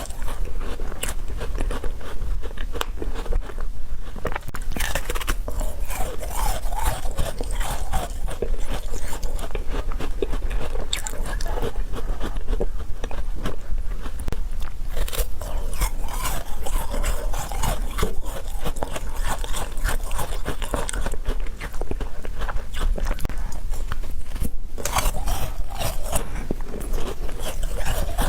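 Someone biting, crunching and chewing food, a dense run of crisp clicks and crackles throughout.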